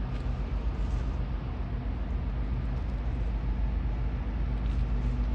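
Steady low drone of the cruise ship's engines and machinery as it passes close by, a constant rumble with a faint held hum.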